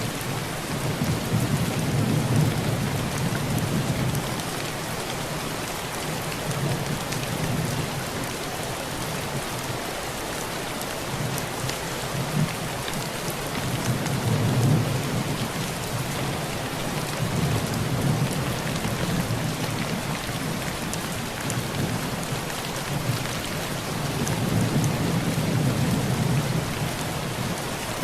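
Steady heavy rain falling on a tin roof, with fine drop ticks throughout. Low thunder rolls swell and fade about four times.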